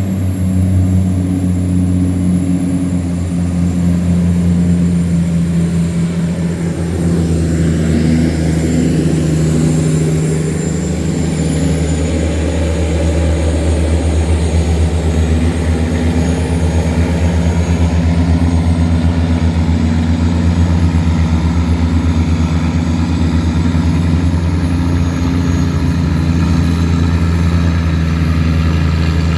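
Tugboat's heavy diesel engine running loud and steady under load while towing cargo barges against the current. The low drone holds throughout, dipping slightly about seven seconds in.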